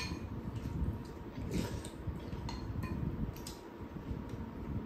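Metal spoon and chopsticks clinking lightly against bowls several times as food is scooped.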